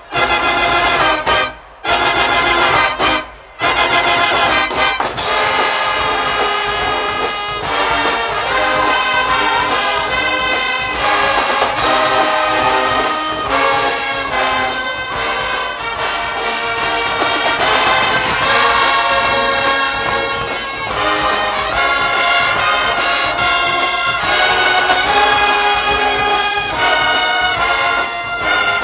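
A Guggenmusik band of massed brass and drums playing loudly. In the opening seconds the band cuts off abruptly twice in short stop-start phrases, then plays on without a break.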